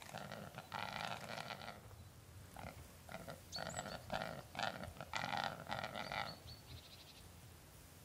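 Male hybrid capercaillie × black grouse (rackelhane) giving its display song: a string of rough, noisy calls, some short and some about a second long, about nine in all.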